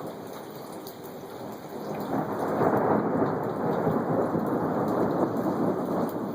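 Thunder rumbling over heavy rain, swelling about two seconds in and rolling on.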